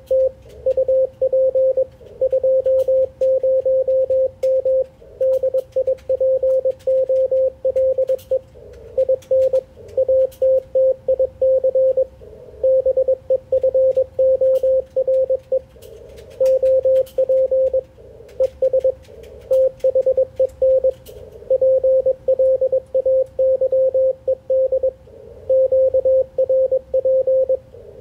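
Morse code (CW) from an Icom IC-746PRO HF transceiver: a single steady tone of about 550 Hz keyed on and off in dits and dahs, sent by hand at a conversational pace with short pauses between characters and words. A low band hiss and faint static clicks sit under the tone.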